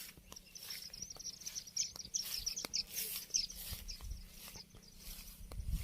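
Small birds chirping in quick high twitters, with scattered sharp clicks and some low thumps near the end.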